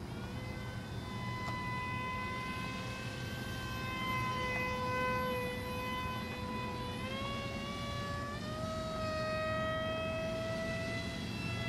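Motor whine of a scratch-built foam RC airplane in flight, a steady high tone that steps up in pitch twice in the second half as the throttle is advanced, over a low rumble.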